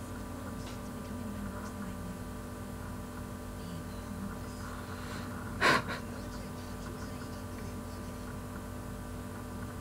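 Steady electrical hum under faint distant voices, broken about halfway through by a single short, sharp puff of breath into the microphone, the loudest sound.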